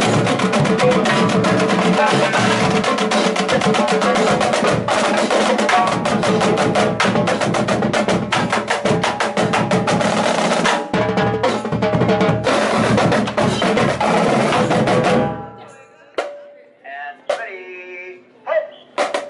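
Marching band drumline of snare drums and bass drums playing a street cadence, fast dense strokes with rolls. The drumming stops abruptly about fifteen seconds in, leaving a few voices and scattered clicks.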